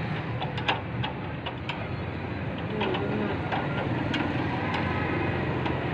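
Tractor engine running steadily, a low hum, with scattered sharp clicks over it.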